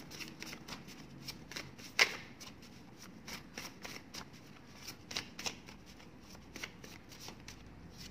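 Paper cards being shuffled and handled by hand: a run of light, irregular card slaps and clicks, with one sharper snap about two seconds in.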